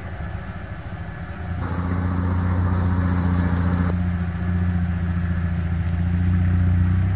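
Motor vehicle engine running with a steady low hum that grows louder about a second in and then holds.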